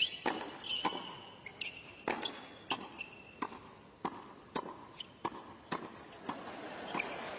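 Tennis rally: a string of sharp ball strikes and bounces, racket on ball and ball on court, about one or two a second.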